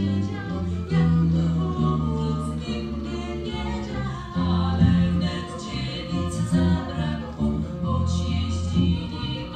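Small mixed vocal ensemble singing a Polish song in close harmony, with steady low bass notes under the moving upper voices.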